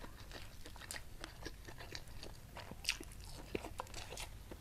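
Faint close-miked chewing of a mouthful of rice with fried-anchovy and petai sambal, mouth closed, with scattered small wet clicks.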